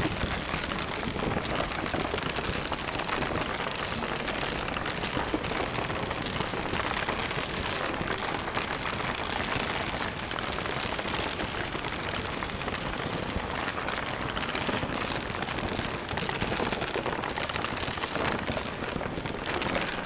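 Steady rushing noise with no pitch or rhythm, spread evenly from low to high.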